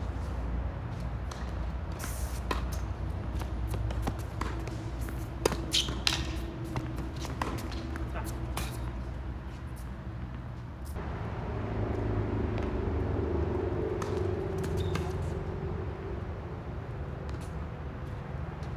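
Tennis rally on an outdoor hard court: a series of sharp racket strikes and ball bounces, most of them in the first half. Under them runs a steady low rumble of distant traffic.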